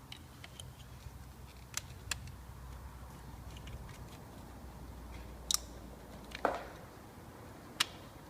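Scattered sharp clicks and knocks of an ignition coil being handled and pushed into place on its spark plug, one of them a duller thud, over a faint low steady hum.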